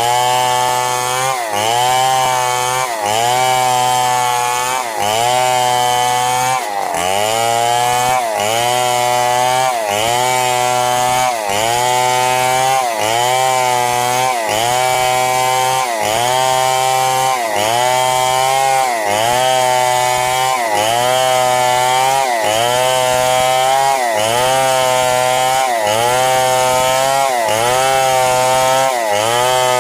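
Chainsaw engine running hard while sawing a log into planks. Its pitch sags under load and picks back up in a steady cycle about every second and a half.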